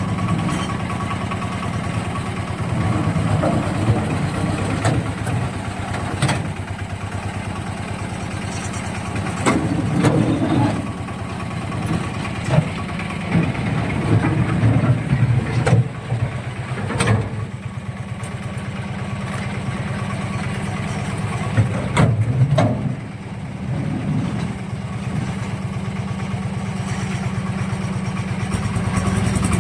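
A construction-site machine's engine running steadily, with scattered sharp clanks and knocks of material being handled.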